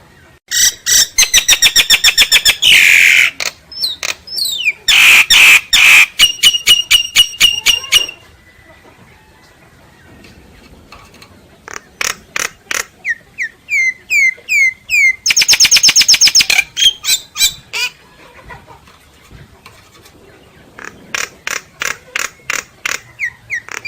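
Myna singing in loud bursts: rapid runs of repeated notes and harsh squawks, a series of short rising whistles about halfway through, and quiet pauses between the phrases.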